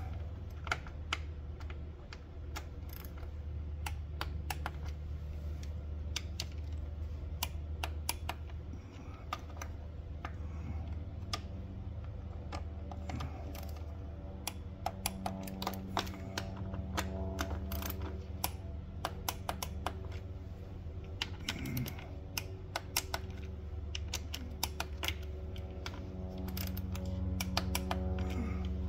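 Ratcheting torque wrench clicking in short irregular runs as bolts are tightened.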